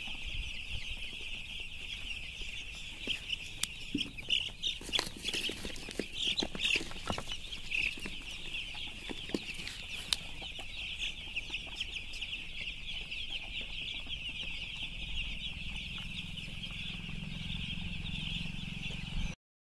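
A large flock of broiler chicks peeping without pause, a dense chorus of overlapping high cheeps. A few sharp clicks come between about four and seven seconds in, and the sound cuts off suddenly near the end.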